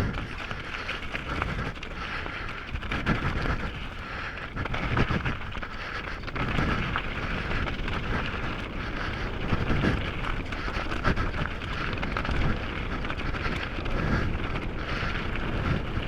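Downhill mountain bike, a Canyon Sender, ridden over a rough trail: tyres rolling and crunching, with steady rattles and knocks from the bike over bumps and wind buffeting the microphone. Heavy breathing from the rider sounds close to the microphone.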